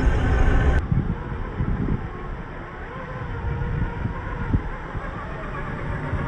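Electric 540-size motors and geared drivetrains of 1/10 scale RC crawler trucks whining as the trucks churn through thick mud, with a low rumble and scattered knocks. About a second in the sound drops in level and changes character.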